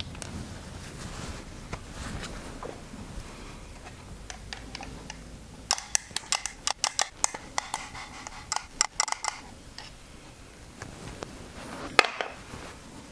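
Hand-pump oil can clicking through a quick run of squirts, about fifteen sharp clicks over some four seconds, as oil is pumped into the engine's oil passages. One louder metallic click follows near the end.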